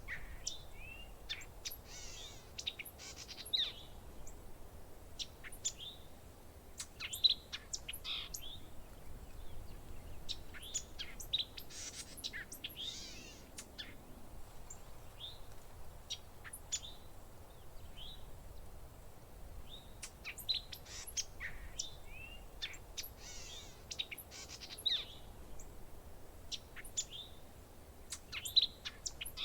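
Parrots chirping and calling: many short, sharp chirps and squawks, bunched into busier flurries every several seconds.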